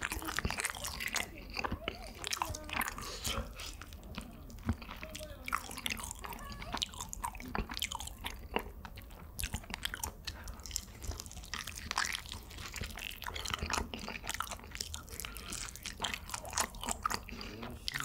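A person chewing close to the microphone, with crisp crunching bites and quick clicks throughout.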